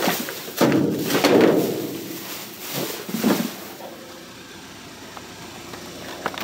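Plastic bags and packaging rustling and crinkling as trash is shifted around in a dumpster, in several swells over the first three seconds or so, then only faint shuffling and handling noise.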